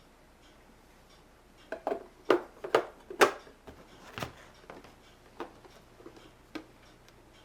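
Knocks and clacks of plastic coffee-maker parts being handled and set down: a quick run of several sharp knocks about two seconds in, then a few lighter single taps.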